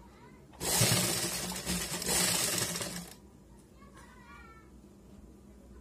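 Sewing machine running in one steady stretch of about two and a half seconds as a seam is stitched, then stopping.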